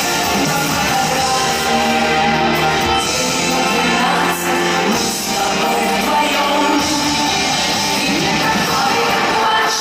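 A live pop-rock band playing loudly through a hall's sound system, with a female lead singer, electric guitars and drums.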